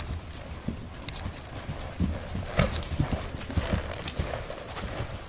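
KWPN horse's hoofbeats on arena footing, a run of low thuds with a few sharper knocks.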